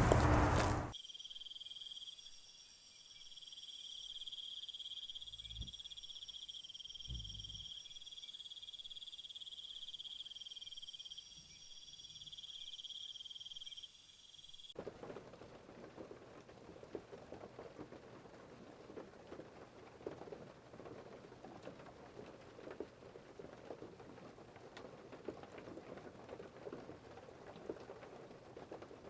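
Crickets chirring in a steady high-pitched insect chorus, cutting off abruptly about 15 s in. A dense pattering, crackling noise follows.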